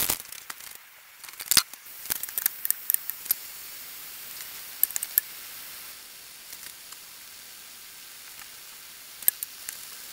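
A fork clicks and scrapes against a stainless saucepan as a block of instant ramen noodles is broken up in the water, over the first few seconds. Then a steady low hiss as the pan heats on a gas hob, with a couple of light clicks.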